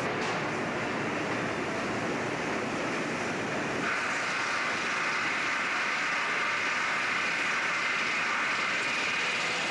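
Steady background noise of shop machinery. About four seconds in, a louder hissing joins it and holds.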